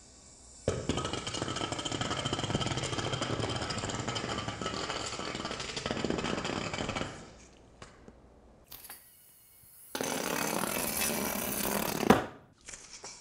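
YoTricks Fizz yo-yo spinning and rolling along a hard floor, a dense buzzing rattle that starts sharply about a second in and lasts about six seconds. After a quieter gap, a second stretch of the same rattle of about two seconds ends with a sharp knock.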